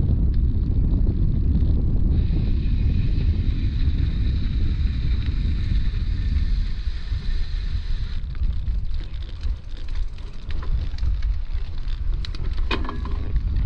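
Wind buffeting the microphone in a steady low rumble while a bicycle rolls along a gravel towpath; a brief clatter of clicks near the end.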